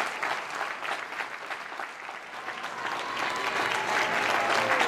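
Audience applauding, the clapping easing slightly about two seconds in, then building again.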